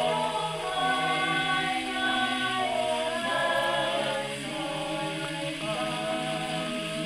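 Background choral music: a choir singing slow, sustained chords that change every second or two.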